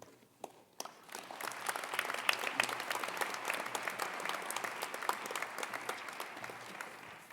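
Audience applauding, starting about a second in and slowly dying down near the end.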